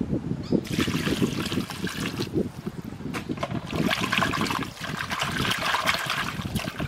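Water splashing and sloshing in a stainless steel bowl as a hand swishes sliced broccoli in it to wash it, in two spells, the second longer, over dull low knocks.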